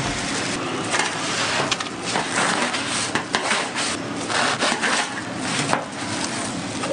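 Crunching and scraping of a knife sawing through the crisp, crumb-coated crust of fried sandwiches on a metal tray, with many short crackling clicks.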